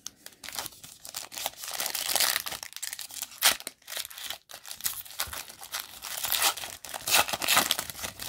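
Foil wrapper of a 2019 Diamond Kings baseball card pack being torn open by hand and peeled off the cards: a dense run of crinkles and rips, loudest about three and a half seconds in and again near the end.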